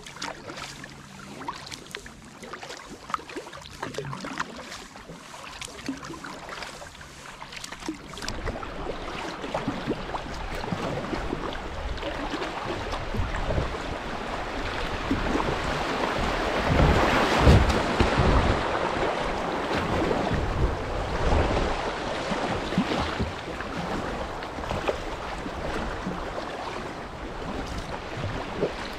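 Kayak paddle strokes dripping and splashing in calm water, then a steady rush of river water that comes in about eight seconds in as the kayak runs into shallow riffles. The rush swells to its loudest about halfway through and stays strong to the end.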